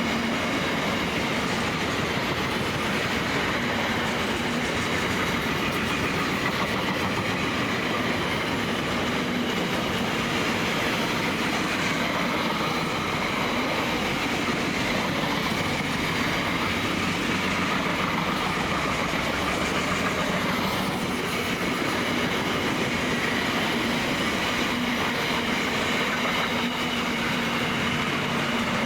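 Freight train wagons rolling past at speed: a steady rolling rumble with dense clatter of steel wheels on the rails.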